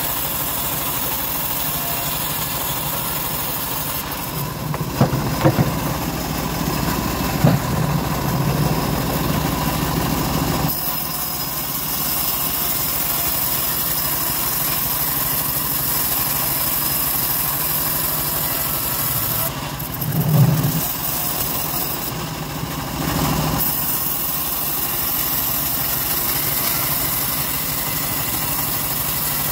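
Homemade bandsaw mill running steadily while ripping teak timber lengthwise, the blade's sound changing during two stretches of the cut. A few brief knocks stand out, about five seconds in, again near seven and a half seconds, and near twenty seconds.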